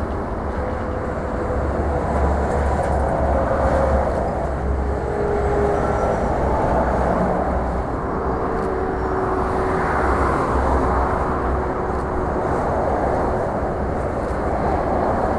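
Airbus A380-800's four Engine Alliance GP7200 turbofans on final approach with gear down: a steady jet engine noise with a deep rumble underneath.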